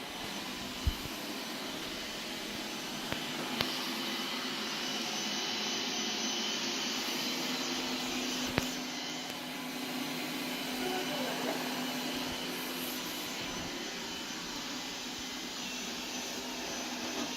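Qihoo 360 S6 robot vacuum running with a steady whirring hiss. A few brief clicks come through, about one second in, around three and a half seconds, and near nine seconds.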